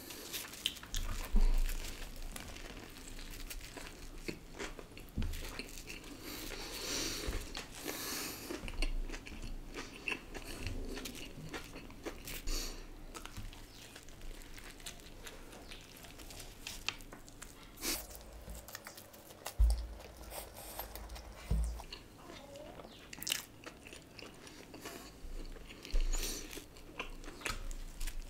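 Close-miked bites and chewing of a KFC Tandoori Zinger burger: repeated crisp crunches of the fried chicken fillet, with chewing between bites.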